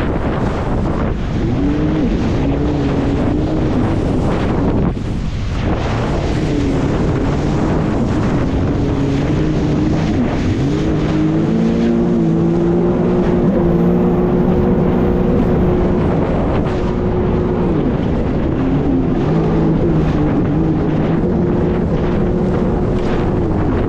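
Jet ski engine running at speed, its pitch rising and falling with the throttle, holding steady for a few seconds in the middle before easing off and picking up again. Wind rushes over the microphone throughout.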